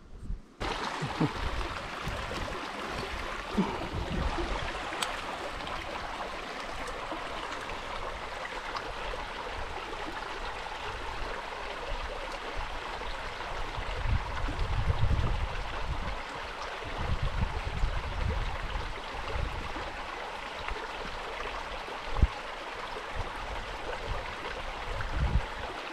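Steady rushing outdoor noise with repeated low rumbles of wind on the microphone.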